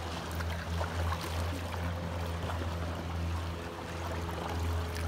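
Steady low drone of a boat motor, with small splashes and drips of water around the kayaks.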